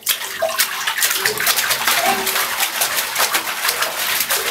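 A child's hands rapidly slapping bathwater in a tub: a fast, continuous run of splashes that starts suddenly.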